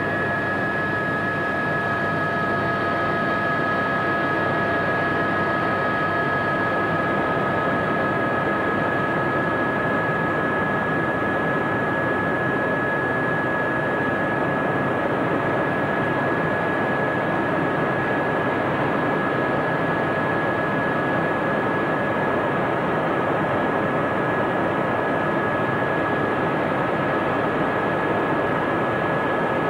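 Cabin noise of an AS350B Squirrel helicopter running, with its single Turbomeca Arriel turboshaft engine: a steady high whine of two constant tones over an even rush of rotor and airflow noise.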